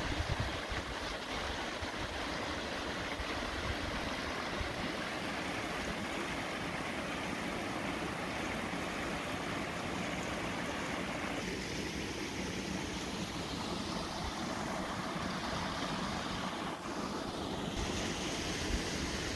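Steady rushing noise with a low, uneven rumble underneath.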